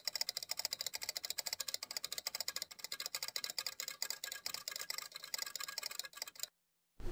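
Rapid, even ticking sound effect, many clicks a second, running as an animated digital counter rolls up its numbers. It stops about six and a half seconds in, and a short thud comes right at the end.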